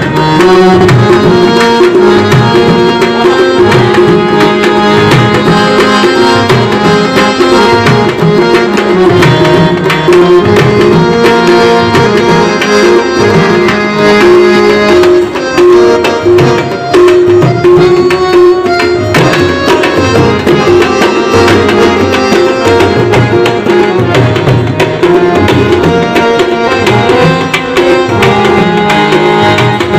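Background music: tabla drumming under a melody with a steady held tone.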